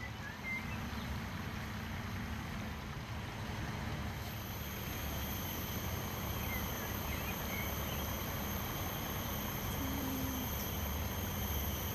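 Outdoor ambience: a steady low rumble with a few faint bird chirps, one about half a second in and a couple more around the middle.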